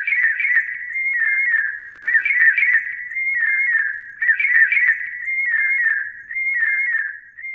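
American robin song, electronically altered into a narrow band of whistled, warbling phrases. Four near-identical phrase groups come in a loop about every two seconds.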